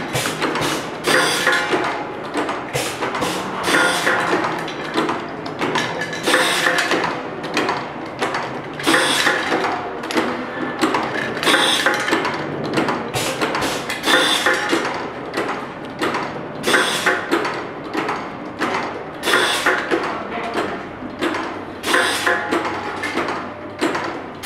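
Rotary tube filling and sealing machine running: fast mechanical clacking and clicking from its turntable and stations, with a heavier clunk about every two and a half seconds as it cycles.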